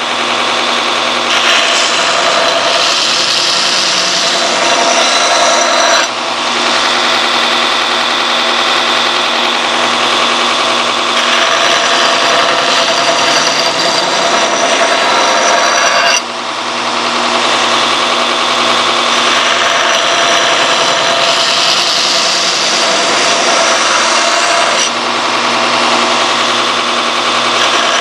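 Belt grinder with a 40-grit belt running while a forged steel knife blank is ground against it, knocking off forge scale and profiling the blade. The grinding dips briefly three times between long passes.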